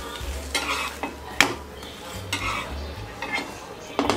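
A steel spatula scraping and clicking against a nonstick tawa as it presses an uttapam, with the batter sizzling in the hot pan. A few sharp clicks stand out: one about a second and a half in and another near the end.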